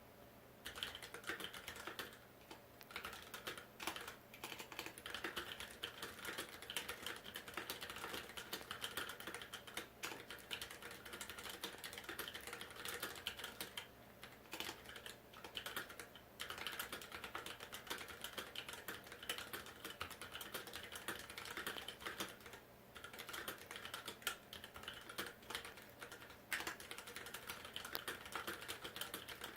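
Typing on a KBD661 mechanical keyboard with Kailh Pro Purple tactile switches modded with lighter Cherry MX Blue springs: a steady stream of keystroke clacks with a few short pauses, the longest around 14 and 22 seconds in.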